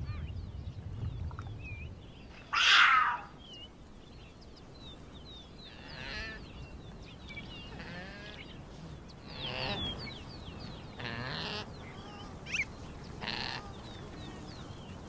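Female puma calling her cubs: one loud mewing call about three seconds in, then several softer calls spread through the rest. Short high chirps run throughout.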